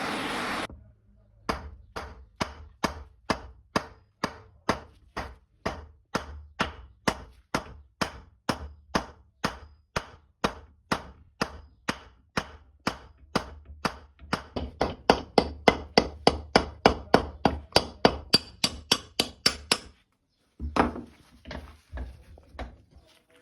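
Long run of evenly spaced hammer blows on metal, about two to three a second, growing louder and a little quicker for the last several seconds before stopping; a few softer knocks follow. A steady noise cuts off just before the hammering begins.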